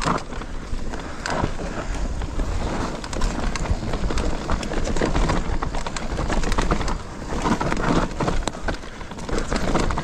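Mountain bike riding down a rough forest trail: tyre noise on dirt with many small knocks and rattles from the bike over the terrain.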